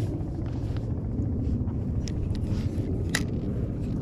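Wind rumbling steadily on the microphone, with faint scattered clicks and one sharper click about three seconds in.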